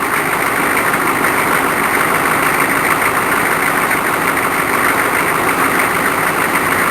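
Pickup truck engine running steadily at idle.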